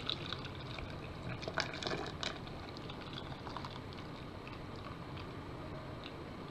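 Water poured in a thin steady stream from a saucepan into a glass jar of boiled lemons, filling the jar, with a few faint ticks in the first two seconds.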